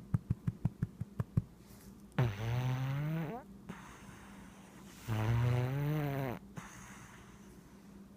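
Siamese cat snoring in deep sleep: two drawn-out buzzing snores about three seconds apart, each a little over a second long and rising slightly in pitch, after a run of quick clicking rattles in the first second and a half.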